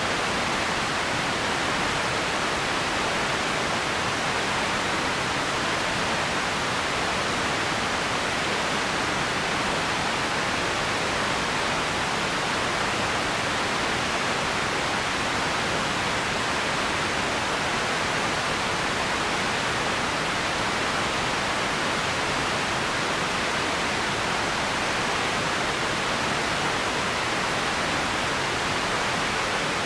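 Steady, even hiss of empty ambience noise, strongest in the upper middle range, with no distinct events or changes.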